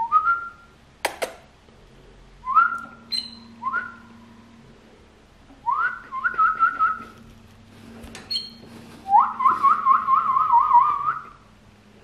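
Canary singing in short whistled phrases: single rising notes a second or so apart, then longer warbling trills, the longest near the end. A couple of sharp clicks fall between the phrases.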